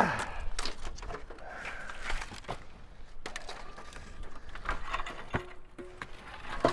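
Digging by hand through a pile of scrap metal and junk: irregular knocks, scrapes and rattles of debris being pulled aside, with a short metallic ring about five seconds in.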